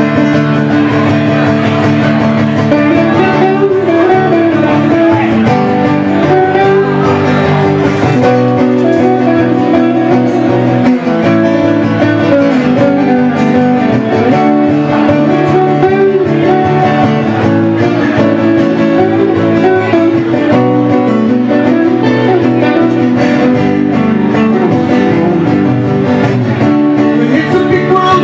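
Solo acoustic guitar strummed steadily, playing the instrumental introduction to a song before the vocals come in.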